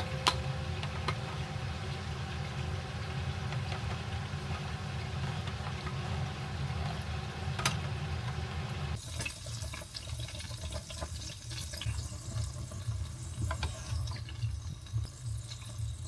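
Water running steadily in a kitchen, as from a tap into a sink. The hiss thins about nine seconds in while the low rush carries on.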